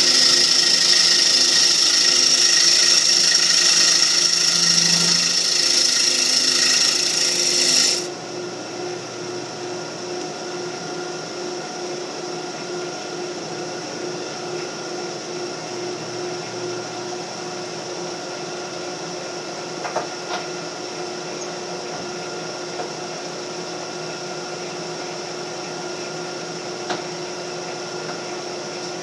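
Wood lathe turning a mahogany bowl: a tool works the spinning wood with a loud hiss, which stops abruptly about eight seconds in. The lathe motor keeps running with a steady hum, and there are a few faint clicks later on.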